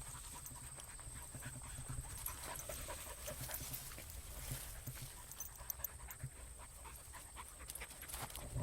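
A dog panting, with faint scattered clicks and rustles.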